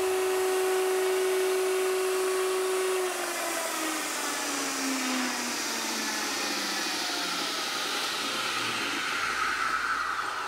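Electric motor of a DIY grinding machine running with a steady hum, then spinning down after switch-off, its pitch gliding steadily lower from about three seconds in.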